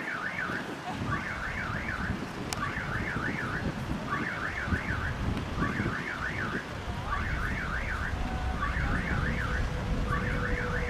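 Electronic warning signal sounding in short warbling bursts, repeating about once a second, over a low rumble.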